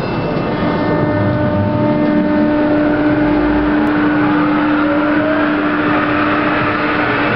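Lille metro VAL 206 rubber-tyred train accelerating from standstill, its DC pulse-width-modulation traction control giving a whine of several steady tones over running noise. About halfway through, some of the tones start rising in pitch as the train picks up speed.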